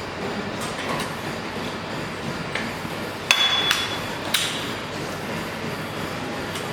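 Gym weights clanking metal on metal: several sharp clanks, the loudest bunched about halfway through, one of them ringing briefly, over a steady background noise.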